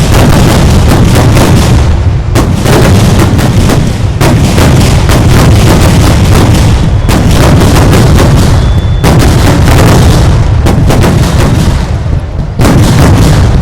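Kerala temple-festival fireworks (vedikkettu): a dense, continuous barrage of explosions going off too fast to count, very loud, with a fresh volley surging in every two seconds or so.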